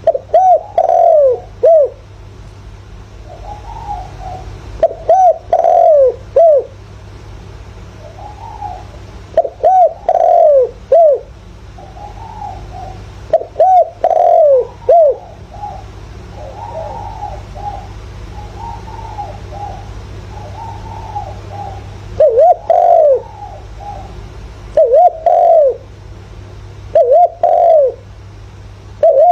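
Spotted dove cooing its repeated phrase of a few curved notes again and again, with softer coos in between; the call of a decoy dove used to lure and provoke wild doves. A steady low hum runs underneath.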